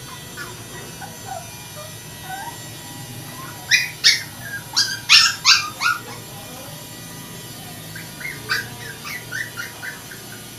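Poodle puppies whimpering and squeaking, with a run of loud, sharp, high-pitched yips about four seconds in and softer yips later on.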